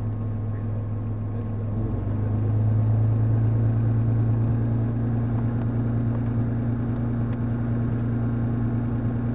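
Engine of a desert 4x4 running with a steady low hum, getting a little louder about two seconds in.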